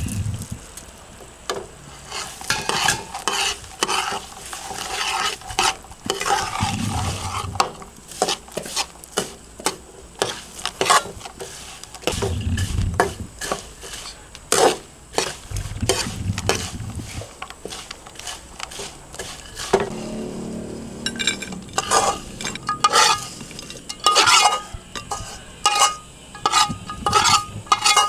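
A spatula scraping and knocking against a wok as crickets are stir-fried in a thick dark sauce, over a sizzle. Frequent clacks run throughout, with ringing metal clinks in the last several seconds.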